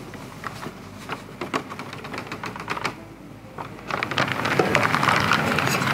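A foil-lined plastic pouch crinkling and crackling in the hands, then, about four seconds in, denser and louder rustling as soft-serve powder is shaken out of it into a steel pail.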